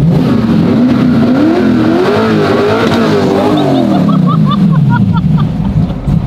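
Twin-turbo 408 stroker V8 of a 1969 Camaro, through a NASCAR-style flat side-exit exhaust, revved from idle in a few quick blips up to a peak and let fall back to idle.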